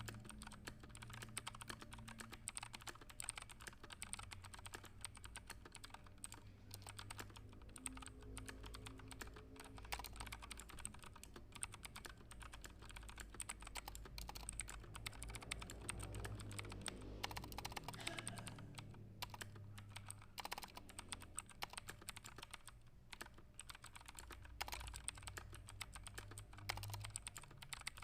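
Fast, continuous typing on a computer keyboard, many keystroke clicks a second, over a low steady hum.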